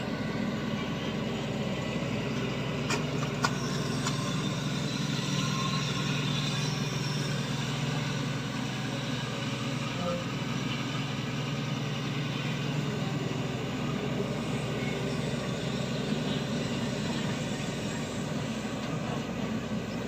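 Shantui excavator's diesel engine running steadily while it works, with two short sharp knocks about three seconds in.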